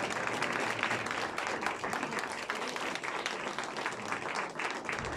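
Audience applauding, the clapping growing sparser near the end.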